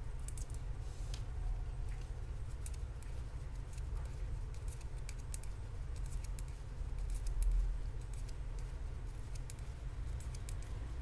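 Metal knitting needles clicking against each other in irregular clusters of light ticks as a row of knit stitches is worked in wool, over a steady low hum.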